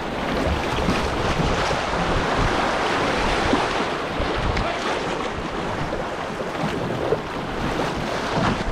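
Whitewater rapids rushing around a canoe, a steady dense roar of moving water, with wind buffeting the microphone.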